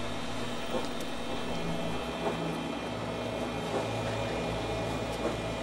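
A steady machine-like hum with a few faint ticks.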